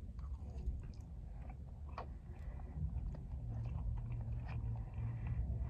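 A person chewing a forkful of a rice and chicken bowl close to the microphone, with irregular small wet mouth clicks and smacks, over a low steady rumble.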